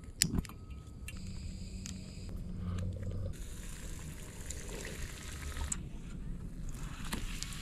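Bread dough frying in a pan on a canister camp stove, a steady sizzle that grows thicker about three seconds in. A sharp click comes right at the start.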